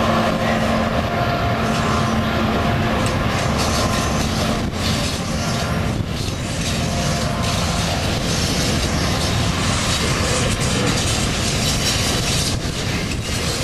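A heavy freight train's wagons rolling past on the rails in a steady rumble, with a few sharp clanks. The drone of the EMD GT46C diesel locomotive, which has just passed, fades out in the first couple of seconds.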